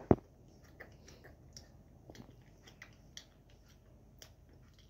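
A single sharp thump right at the start, then faint, scattered small clicks and ticks.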